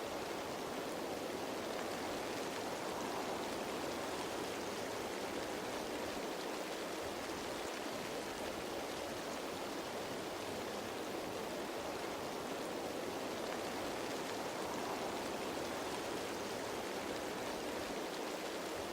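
Steady rain falling on foliage, an even wash of water noise that stays at one level throughout.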